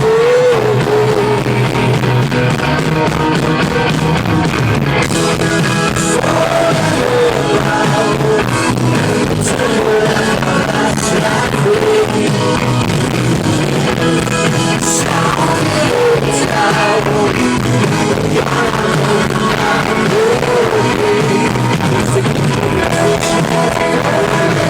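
Live rock band playing on electric guitars, bass and drums, with singing over it.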